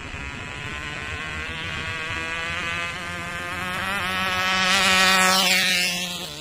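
Tiny nitromethane-fuelled glow engine of a Cox tether drag car running flat out with a high buzzing whine as the car speeds down the tether toward the microphone. It grows louder to a peak about five seconds in, then drops in pitch as the car passes.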